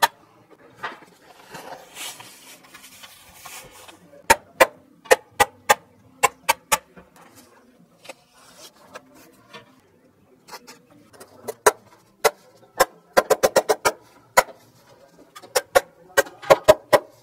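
Hand staple gun driving staples through building paper into a wooden window buck: a long series of sharp clicks, some single and some in quick runs. Paper rustles as the roll is worked in the first few seconds.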